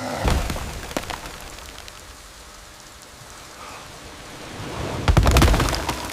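Steady rain falling, with a crack of thunder just after the start and a louder, longer thunderclap about five seconds in.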